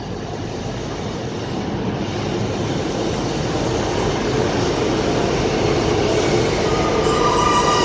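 A diesel train moving through the station, its running noise growing steadily louder, with wheels starting to squeal on the rails near the end.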